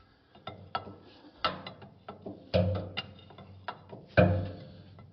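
Wrenches working a stuck hydraulic fitting loose on a concrete pump's slewing cylinder: irregular metallic clicks and clanks, with three louder clanks spread through the middle.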